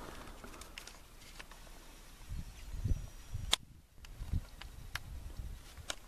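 Low, dull thumps of a handheld phone being jostled while walking over dry ground, with a few sharp clicks, the loudest about halfway through.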